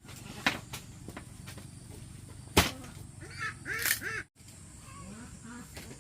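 Two sharp knocks, the second and louder about two and a half seconds in, followed by a quick run of short calls from domestic fowl.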